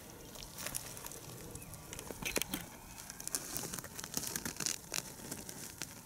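Crackling and rustling of a swarming mass of wood ants on their mound: many fine, irregular ticks over a soft rustle, thicker from about two seconds in.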